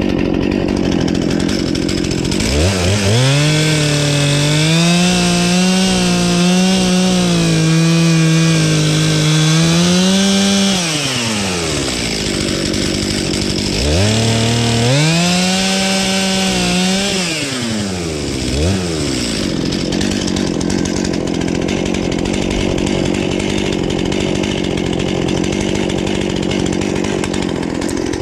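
Two-stroke chainsaw idling, then throttled up to full revs twice, first for about eight seconds with the pitch wavering, then for about three seconds, with a short blip of the throttle before it settles back to idle.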